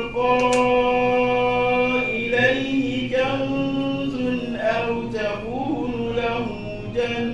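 A man's voice reciting the Qur'an in Arabic as a slow melodic chant, holding long notes with ornamented turns of pitch between them.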